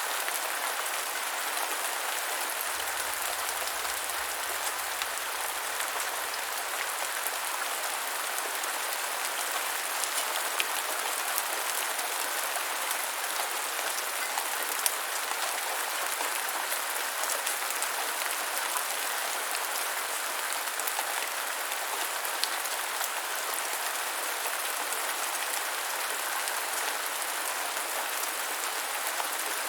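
Steady rain falling: an even hiss with many small drop ticks scattered through it, and now and then a louder single drop.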